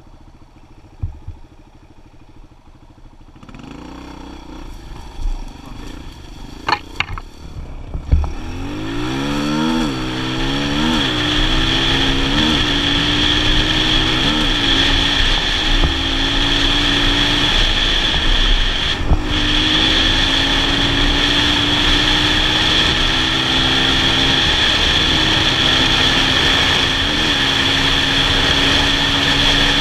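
Kawasaki KLX 125 dirt bike's single-cylinder four-stroke engine, running low and quiet for the first several seconds. About eight seconds in it revs hard and climbs through the gears, its pitch dropping at each shift, then holds a steady high-rev run at speed.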